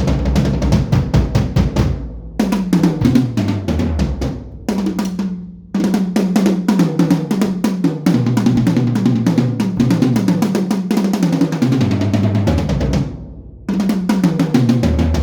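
Sonor HiLite maple-shell drum kit played in rapid strokes around the toms, stepping down in pitch from the small rack toms to the big floor toms several times. There are three brief breaks.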